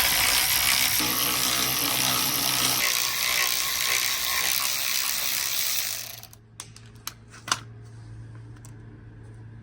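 Ratchet wrench with a 13 mm socket on an extension, ratcheting continuously for about six seconds as it backs out a bolt, then stopping. A few sharp clicks follow.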